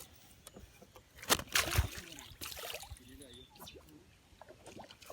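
Water splashing and sloshing, likely a hooked fish thrashing at the surface, with a couple of sharp splashes about a second and a half in.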